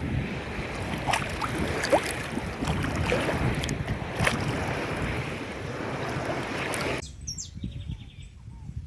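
Wind rushing over the microphone with lagoon water splashing and lapping, a few sharp splashes or knocks among it; the noise drops away suddenly about seven seconds in.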